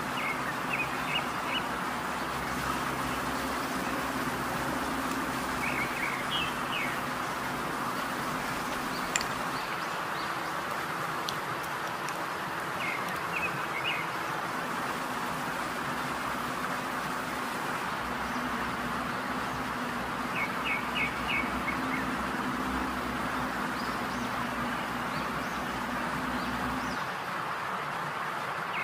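Small birds chirping in short runs of three or four quick notes, several times over, above a steady hiss and an on-and-off low hum.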